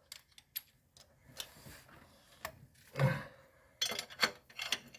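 Scattered light metallic clicks and clinks as a hand tool grips and works a loose roller lifter out of its bore in the engine, with a cluster of clinks near the end.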